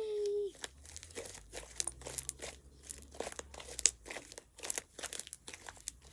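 Fluffy pink slime being squeezed and stretched between the hands, giving many small, irregular sticky crackles.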